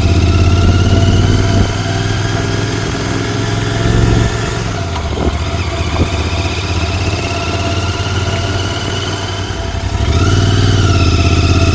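Royal Enfield Continental GT 650's 648 cc parallel-twin engine and exhaust under way. It pulls with a rising pitch, eases off about a second and a half in, blips briefly around four seconds, and runs quieter with a slowly rising whine. About ten seconds in it goes loud again under throttle.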